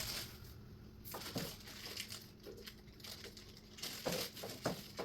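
Light handling noises: scattered small clicks and brief rustling as flat-pack cabinet parts and hardware are handled.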